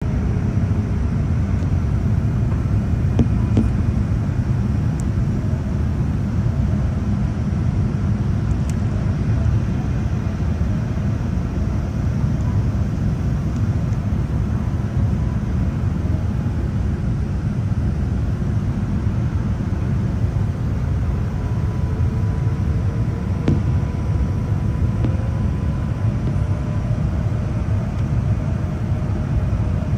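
Steady low rumble of airflow and engines inside the cabin of a Boeing 787-10 airliner descending to land. Faint engine tones sit over it, and one of them slowly rises in pitch over the last several seconds.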